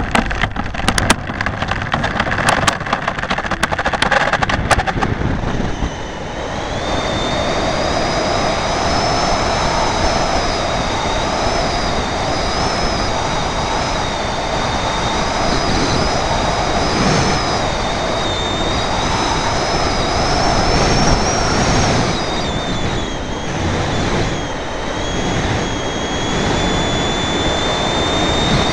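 Model glider heard from its own onboard camera under aerotow: a rattling clatter of knocks as it rolls down the tarmac runway for the first five seconds, then a steady rush of air as it flies on tow, with a high wavering whine over it.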